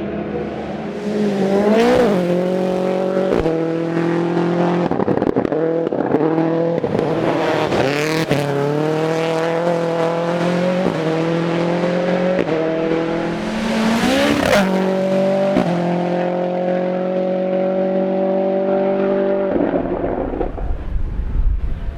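Toyota Yaris AP4 rally car engine pulling hard, its pitch climbing and then dropping at a string of quick gear changes, with short lifts of the throttle about 2 and 14 seconds in. About 20 seconds in the engine note stops and only a low rumble is left.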